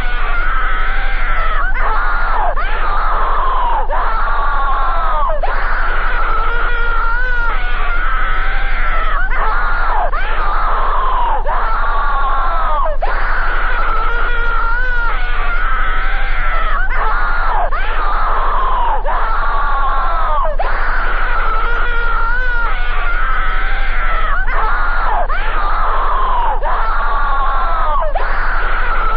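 Mock emergency alert alarm: a loud pitched tone that glides downward and starts again about every second and a half, over a steady low hum.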